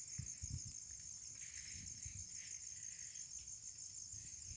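Faint, steady high-pitched chirring like crickets or other insects, with a few faint low thuds underneath.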